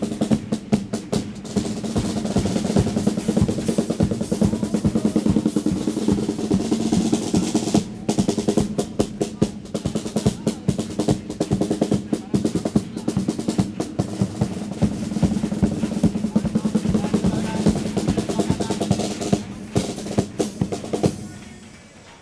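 A carnival chirigota's percussion, snare drum (caja) and bass drum (bombo), playing fast rolls and beats under steady held notes, an instrumental passage that stops suddenly near the end.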